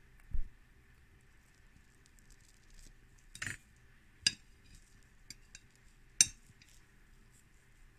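A soft thump, then a few sharp clinks of kitchenware, dishes or utensils knocking together, spaced about a second apart.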